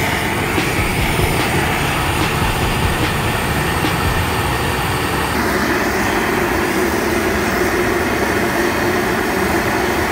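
A propane torch burning steadily, a constant loud rushing noise, as its flame heats the steel of a riding-mower deck so that the bent metal can be hammered back flat.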